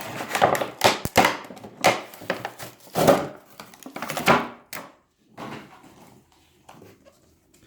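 Cardboard toy box being pried and torn open by hand: a quick run of tearing, scraping and knocking noises for about five seconds, then only faint handling.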